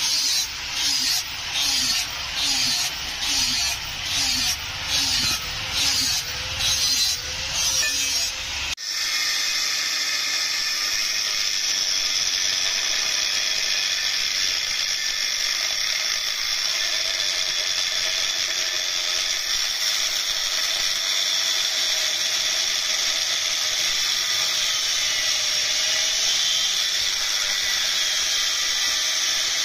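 Rhythmic rasping strokes of a hand tool working steel, about one stroke a second. Nearly nine seconds in they cut off abruptly, and a steady whirring power tool with a hiss runs on.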